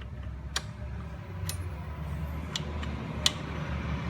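A few sharp metallic clicks, about one a second, from a pin wrench working the rear axle cam of an electric trike during belt alignment, over a low steady hum.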